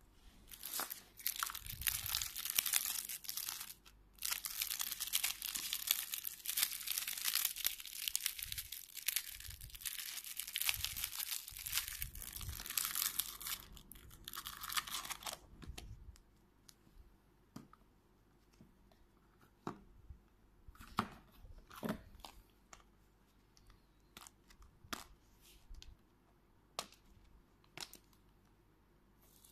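Thin plastic wrapping crinkling and rustling in the hands for about fifteen seconds. After that come scattered light clicks and taps of hard plastic toy capsule eggs being handled.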